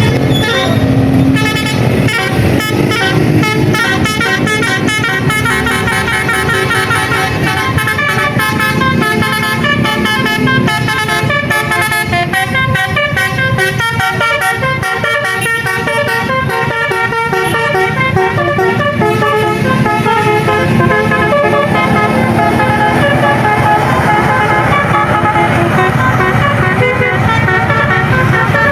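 Bus basuri horn, a musical multi-trumpet air horn, playing a running melody of short notes, over the bus's engine running.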